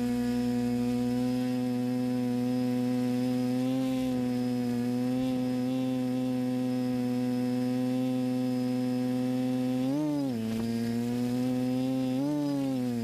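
Motors and propellers of an FPV multirotor drone, heard from its onboard camera: a steady, even buzzing hum. Near the end the pitch swings up and back down twice as the throttle changes.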